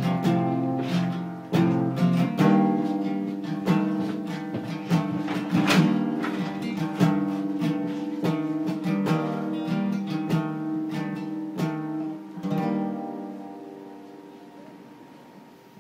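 Acoustic guitar strumming chords in a song's closing bars. A final chord, struck about three-quarters of the way through, rings out and slowly fades away.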